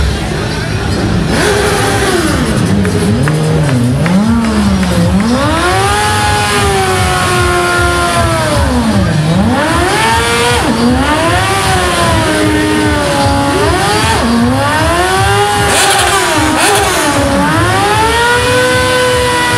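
Sport motorcycle engine revved hard again and again during a rear-tyre burnout, its pitch swinging up and down every second or two over the hiss of the spinning tyre.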